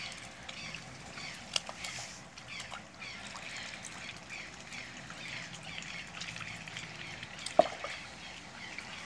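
Young domestic ducks peeping with many short, high calls over a faint trickle of water. A single sharp splash comes about seven and a half seconds in.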